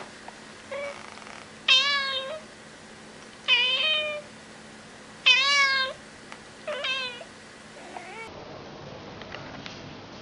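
Grey tabby cat meowing about five times, a meow every second and a half or so, the middle three loudest, each rising and falling in pitch.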